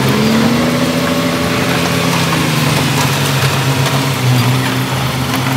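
Heavy earthmoving machine's diesel engine running, with its speed rising over the first second and easing back down a couple of seconds later.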